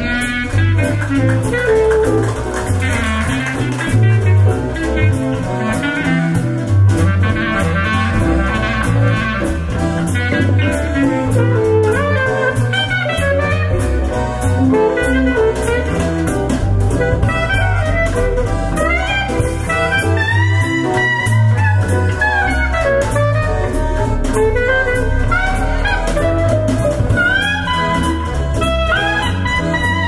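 Jazz demo music played back as a hi-fi listening sample: a gliding melody line over a pulsing bass.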